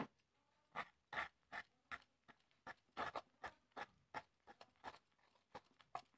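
Wire whisk beating thick cake batter in a plastic bowl: faint, quick scraping strokes, about three a second.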